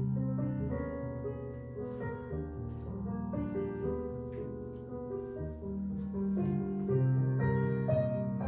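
Jazz-style piano accompaniment for a ballet class playing chords over a bass line.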